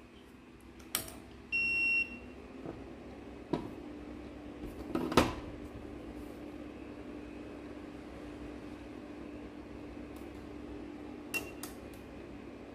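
Sharp clicks of wire contacts and a short electronic beep. Then, with a loud click about five seconds in, a steady low electrical hum sets in as the dental solenoid valve's coil is powered up.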